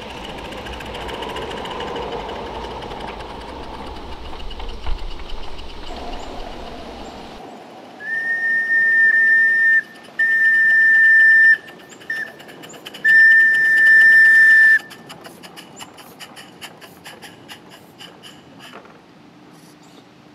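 Live-steam garden-scale locomotive running with a steady hiss and rattle; then its steam whistle blows two long blasts, a short toot and a final long blast, the long-long-short-long grade-crossing signal. Rapid clicking follows as the cars roll by over the track.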